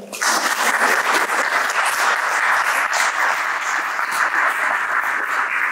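Audience applause, setting in abruptly and holding steady.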